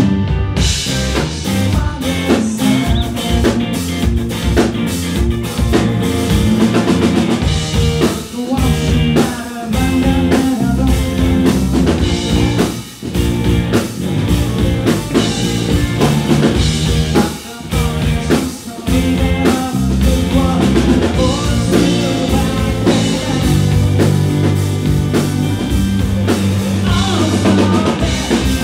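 Live indie rock band playing: a Telecaster-style electric guitar over a drum kit keeping a steady beat, with a male voice singing at times.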